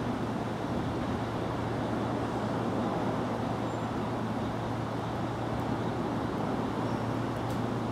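Steady background rumble with a constant low hum underneath and a faint tick near the end.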